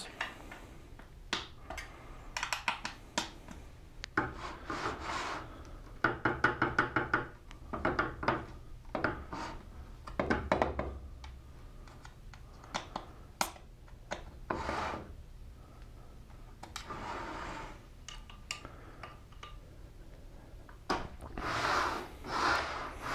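Allen key turning the adjustment screws in the Incra Miter Express sled's miter bar, to take the slop out of its fit in the table saw's miter slot. Spells of rapid small clicks and scraping, with quiet pauses between as the key moves from screw to screw.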